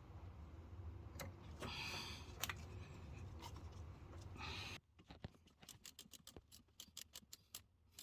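Faint clicks and scrapes of metal parts being handled. About halfway through, a quick run of sharp clicks starts, typical of a ratchet wrench tightening the battery terminal clamp nut.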